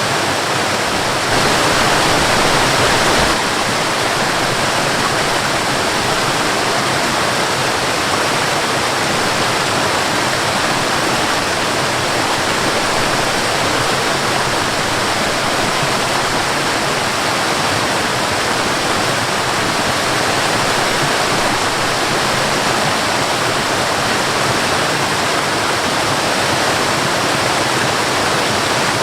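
Waterfall pouring: a steady, dense rush of falling water, a little louder for a couple of seconds about a second in.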